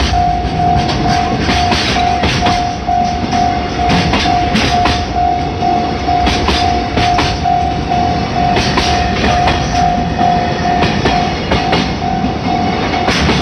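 Freight train wagons rolling over a level crossing, a steady rumble with repeated irregular wheel clacks over the rail joints. Through it, the level crossing's warning bell rings with a steady pulsing tone.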